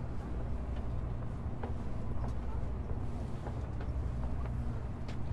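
Cabin noise inside a Shinkansen car: a steady low rumble and hum, with scattered light clicks and knocks.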